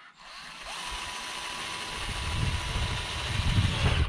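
Cordless drill running for about four seconds, driving a screw into the sheet-metal roofing tin over a window awning. It holds a steady whine, a heavier rumble builds toward the end, and it stops near the end.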